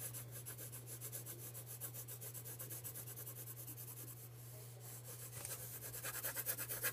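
Gray coloured pencil shading on paper: quick, even back-and-forth scratching strokes, several a second, easing off around the middle and growing stronger near the end.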